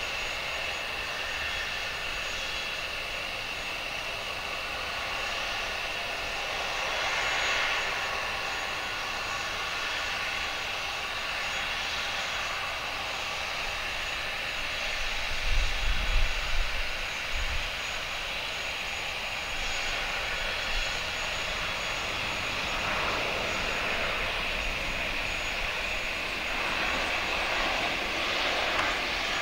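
Airbus A320-232 airliner's jet engines whining steadily as it lands and rolls out on the runway. A few louder low rumbles come about halfway in.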